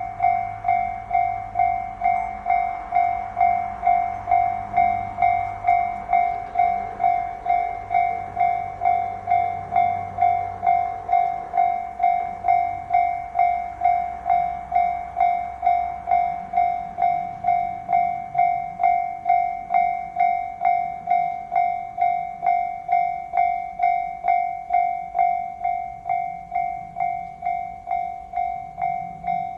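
Japanese railway level crossing warning bell ringing steadily, a little under two strikes a second. For the first ten seconds or so a KiHa 261 series diesel express adds a low engine and wheel rumble beneath the bell, which then fades away.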